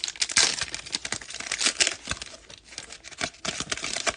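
Wrapper of a 2020 Topps Fire baseball card pack being torn open and crinkled by hand, a dense run of crackling and rustling with many small clicks.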